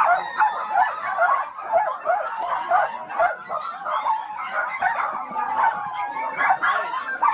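Many dogs barking and yelping at once, a steady, dense chorus of overlapping high-pitched barks, yips and whines from a large crowded pack.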